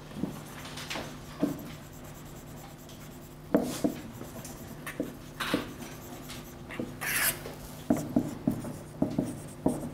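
Marker writing on a whiteboard: irregular short taps and scratchy strokes, one longer stroke about seven seconds in. A steady low hum runs underneath.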